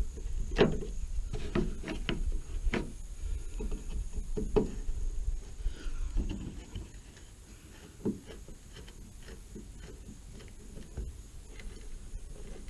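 Scattered light clicks and knocks of small hand tools and screwdriver bits being handled while a Torx bit is sorted out. The clicks are busiest in the first six seconds, then only a few isolated ticks.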